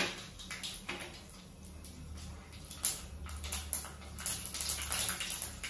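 Mustard seeds spluttering and popping in hot oil in an aluminium kadai, the first step of tempering. The pops are scattered at first and grow quicker from about three seconds in.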